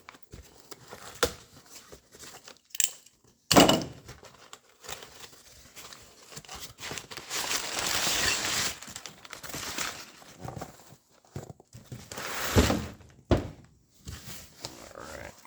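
Packaging being unwrapped by hand: crinkling and tearing wrap, loudest for a couple of seconds in the middle, with two sharp thunks, one early and one near the end, as parts are handled and set down.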